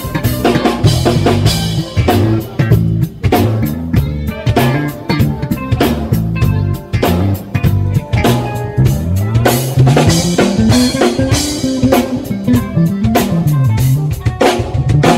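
Band playing live: drum kit and electric bass with guitar. The bass line slides up and down in pitch a little past the middle.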